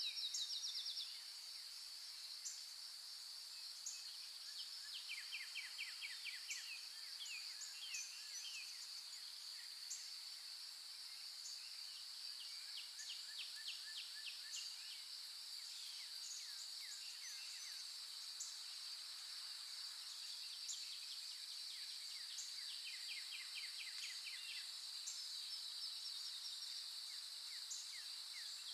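A steady high-pitched insect drone with birds singing over it: short rapid trills and brief high chirps that recur every second or two.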